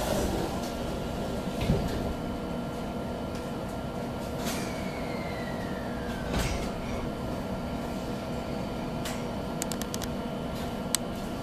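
Electric commuter train standing at a platform, heard from inside the car: a steady electrical hum, the sliding doors closing with a knock about four and a half seconds in and another about six and a half seconds in, with a falling whine between them, then the train starting to pull away with a few sharp ticks near the end.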